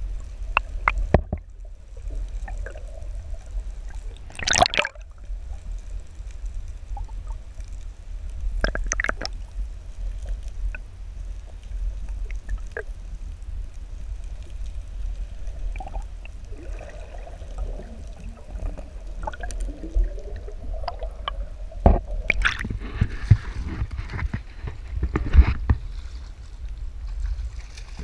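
Muffled water noise from a camera held under the surface: a steady low rumble with scattered sharp knocks and clicks. A faint rising tone comes in over a few seconds past the middle, and the knocks and water noise get busier near the end.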